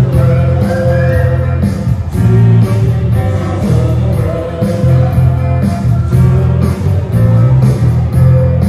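Live worship band playing a song with a singer: electric bass guitar prominent under guitars and keyboard, with a steady beat.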